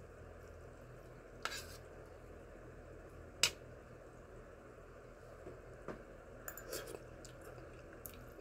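Metal chopsticks clinking against a bowl of noodles: two sharp clinks, the louder about three and a half seconds in, then a few lighter taps near the end.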